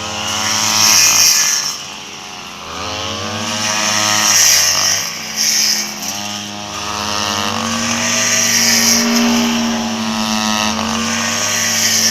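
A vehicle engine revving up and down several times over a steady hum.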